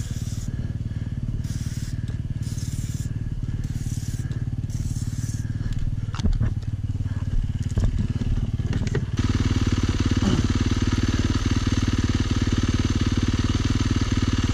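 About six short hisses of an aerosol chain lube being sprayed onto a dirt bike's drive chain, over a motorcycle engine running steadily. A few sharp clicks follow, and about nine seconds in the engine sound gets louder and fuller.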